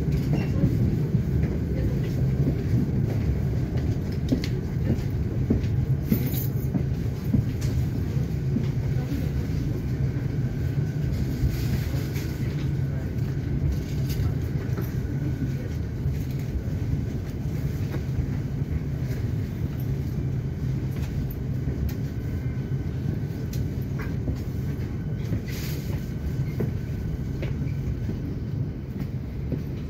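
Melbourne Metro electric suburban train heard from inside the carriage: a steady low rumble of the car running on the rails, with scattered clicks and clacks. The rumble eases gradually as the train slows.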